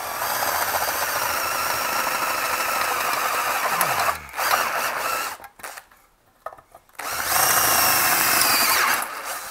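Electric drill boring a grommet hole through a powder-coated metal chassis, in two runs: the first about four seconds, dropping in pitch as the motor spins down, the second about two seconds near the end, with a short burst of other noise between them.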